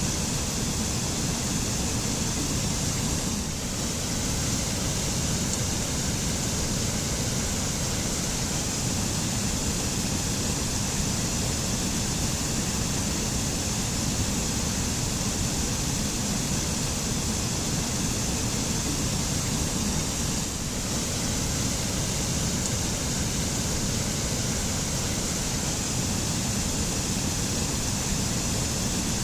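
Waterfall rushing steadily, an even wash of falling water with two brief slight dips in level.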